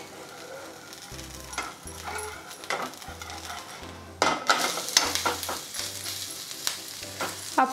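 A ragi chakuli (finger millet dosa) frying in oil in a nonstick pan, sizzling, while a metal spatula scrapes under it and lifts it in a few short strokes, then a louder stretch of scraping and sizzle about four seconds in. Background music with a steady beat plays underneath.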